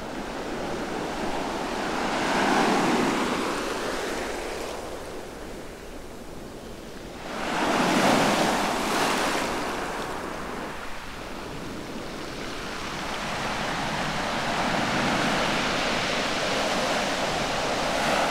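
Sea waves breaking and washing up a shell-strewn sand beach, rising and falling in three surges, the loudest about eight seconds in.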